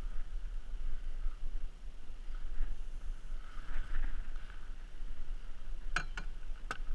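Steady low wind rumble on the microphone with faint water sounds around a small inflatable boat. A few sharp clicks come near the end as the landing net is handled.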